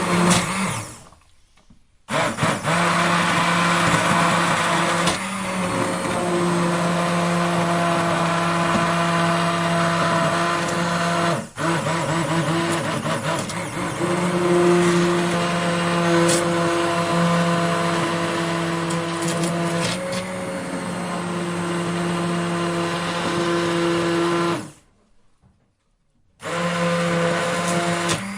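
Electric blender motor running with a steady hum and whir. It stops for about a second just after the start, dips briefly near the middle, and stops for nearly two seconds near the end before starting again.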